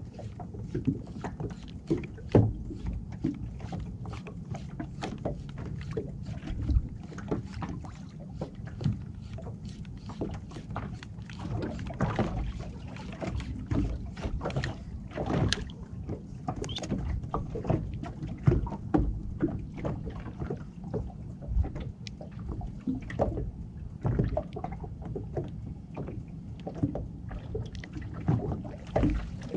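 Sounds of a small boat afloat: a steady low rumble with many short, irregular knocks and clicks, such as water slapping the hull and gear shifting aboard.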